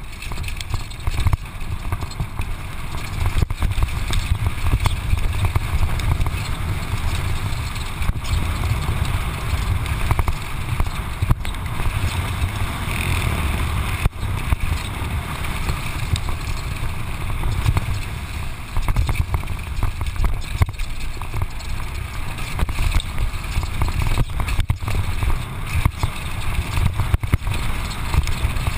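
Downhill mountain bike ridden fast over a dirt and gravel trail: a steady low rumble of wind on the GoPro's microphone, with tyre noise and frequent sharp knocks and rattles from the bike over bumps.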